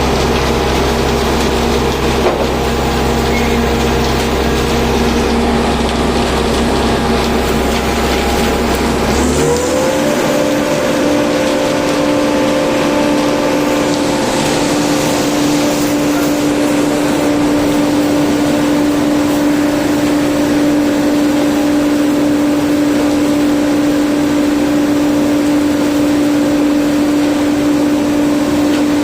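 Engine of construction machinery running steadily. About nine seconds in it speeds up quickly to a higher pitch and holds there, its deep rumble dropping away.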